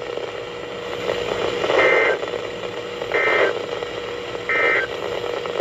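Three short bursts of Emergency Alert System digital data tones, a warbling two-tone data signal with about a second between bursts. This is the end-of-message signal that closes a weather alert. They come through a radio receiver over a constant hiss of static with a faint steady hum.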